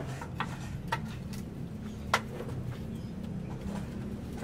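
A few sharp knocks scattered over a steady low hum, the loudest knock about two seconds in.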